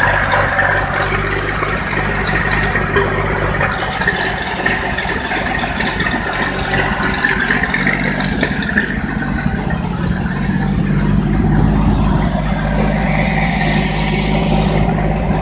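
Buda six-cylinder engine of a Bucyrus Erie 24L drilling rig running steadily at a low idle with the choke still on.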